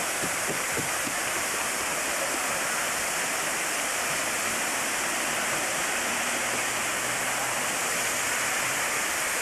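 Small waterfall pouring steadily over a rock ledge into a pond, a constant rushing splash.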